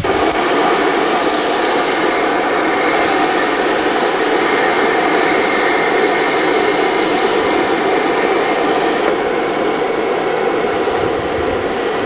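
Steam vent (fumarole) in a geyser basin hissing steadily, a loud, unbroken rush of escaping steam.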